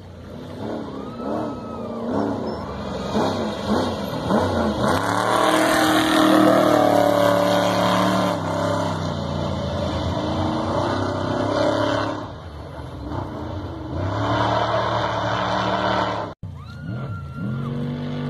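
Trophy truck race engines revving hard, the pitch climbing and dropping again and again as they shift and pass, loudest about six seconds in. The sound cuts off abruptly about sixteen seconds in and picks up on another engine revving.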